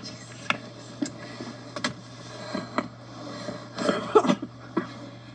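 Handling noise: scattered sharp clicks and knocks with rustling, as a phone is moved about against camouflage clothing, over a steady low hum.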